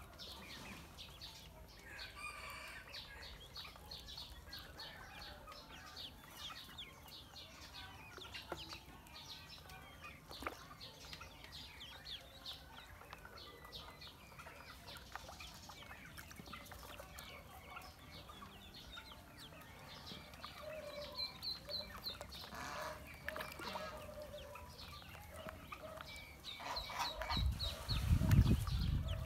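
Ducklings peeping, many short high peeps overlapping constantly. Near the end a louder low rumble comes in under them.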